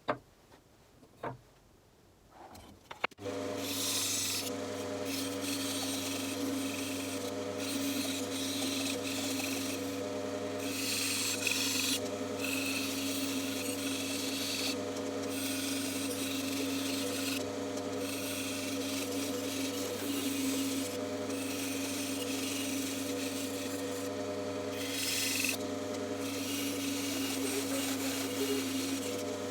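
Bandsaw running with a steady hum as its blade cuts through wood, the cutting noise coming and going every second or two as the piece is fed in and eased off. It starts about three seconds in, after a short near-quiet stretch with a few clicks.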